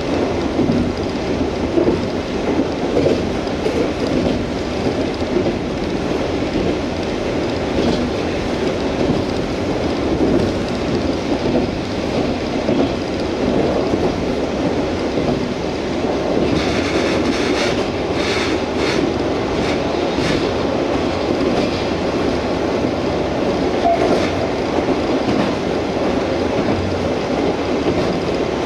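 Inside a KiHa 47 diesel railcar running along the line: a steady rumble of engine and wheels on the rails, with a cluster of sharp clicks from the wheels a little past the middle.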